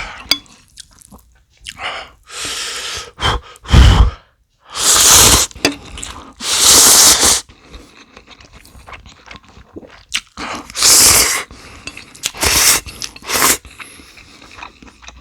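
Close-miked eating of instant ramyeon noodles and kkakdugi radish kimchi: a series of loud bursts of slurping and crunching, several about a second long, with quieter chewing in between.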